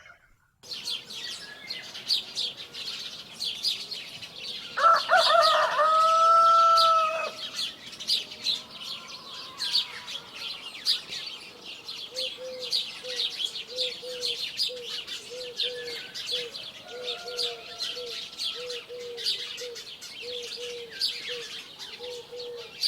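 Dense chirping of many small birds in a morning chorus, with a rooster crowing once, loudly, about five seconds in. From about twelve seconds a low short call repeats steadily, roughly twice a second.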